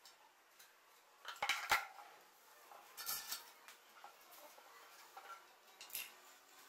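Metal clinks and knocks from handling a coiled-spring soldering-iron holder and a screwdriver on a wooden board: a cluster of clatters about one and a half seconds in, another around three seconds, and a single sharp click near the end.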